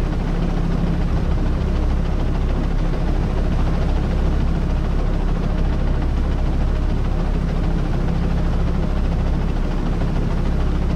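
Tractor engine running steadily while spraying, a constant low drone with a hum of cab and machinery noise, heard from inside the cab.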